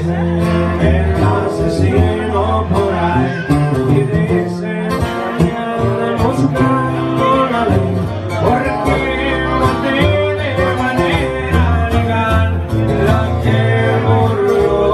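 Upbeat music with plucked guitar-like strings, a steady bass beat and a singing voice.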